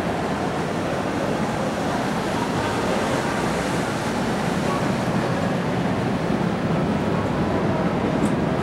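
Steady rushing background noise of a large, echoing hotel atrium, with no distinct events standing out.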